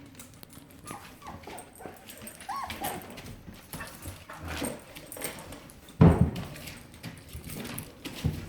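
Litter of five-week-old puppies whimpering and yipping as they play, with scuffling. A loud thud about six seconds in and a smaller one near the end.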